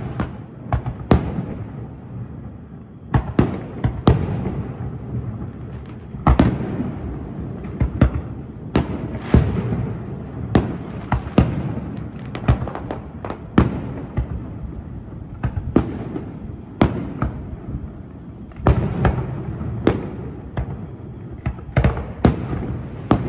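Aerial firework shells bursting overhead in a long, irregular series of sharp bangs, about one a second, with a continuous low rumble of echoes and launches between them.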